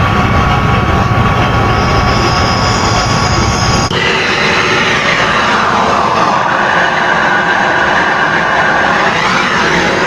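Handheld gas brazing torch running with a steady hiss while heating a refrigerator's copper tubing joint. About four seconds in the sound changes abruptly, then its pitch falls, holds, and rises again near the end as the flame is moved along the joint.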